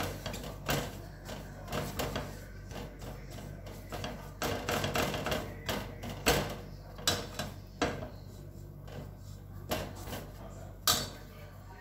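Silicone spatula scraping and knocking against a stainless steel saucepan while a flour roux is stirred, with irregular clicks and a couple of louder knocks about six and eleven seconds in.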